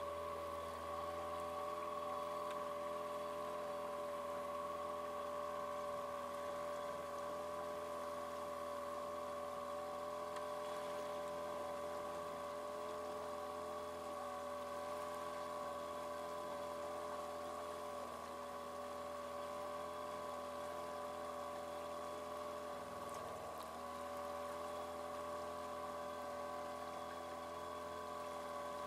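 Trailer sailer's outboard motor running at a steady speed under way, a constant hum with a clear pitch that sags briefly twice in the second half.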